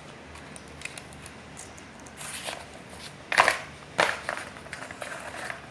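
Parts being handled: a few short rustles and clicks, with the loudest ones about two and a half, three and a half and four seconds in.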